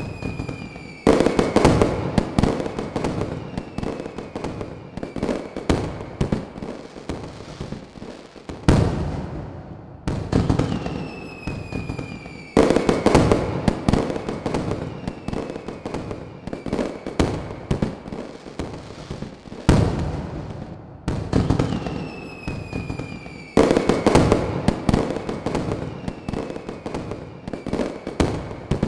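Fireworks going off in dense volleys of bangs and crackling. Three heavy barrages come about every eleven seconds, each led in by a falling whistle.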